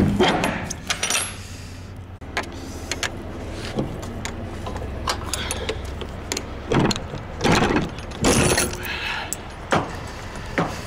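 Metal hardware of a semi-trailer's rear swing door clanking and rattling as the door is handled and swung open against the trailer's side, with a cluster of sharp knocks near the start and several more later on. A steady low engine hum runs underneath.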